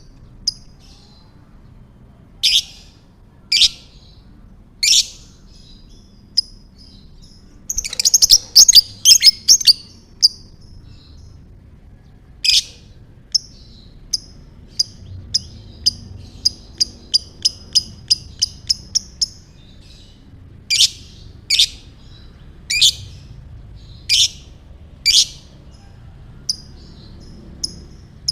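Lovebird calling: sharp, high-pitched shrill chirps spaced a second or so apart, a dense burst of rapid chatter about eight seconds in, then a fast, even run of short chirps at about four a second, and loud shrill calls again near the end.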